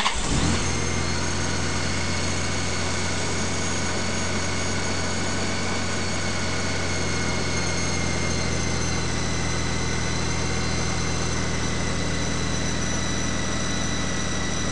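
Steady engine drone: a low hum under several high, held whining tones that sag slightly in pitch, fading out near the end.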